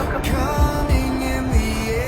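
Background music: a melody of held, gliding notes over a low beat.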